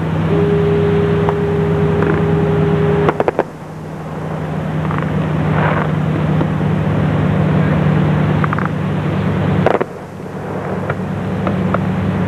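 Steady low hum of an idling engine, with a steady higher tone over it for the first three seconds. Sharp clicks or knocks come about three seconds in and again near ten seconds.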